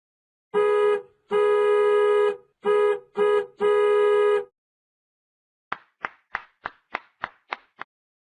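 Comedy sound effect: five honks of one steady, horn-like tone in a short-long-short-short-long rhythm, then eight quick, short notes about a quarter second apart.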